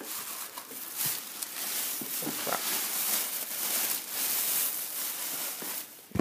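Close rustling and rubbing noise on the microphone, continuous, with many small crackles and scrapes, then a sharp knock near the end.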